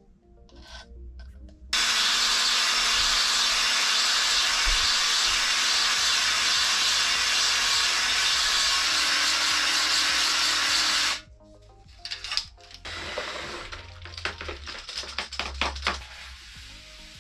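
Drill spinning a three-leg stone cylinder hone inside an oiled cylinder bore: a steady, loud grinding whir that starts about two seconds in and stops abruptly after about nine seconds. This is a final deglazing pass to put a cross-hatch on the wall so new piston rings can seat. Light clicks and handling noises follow.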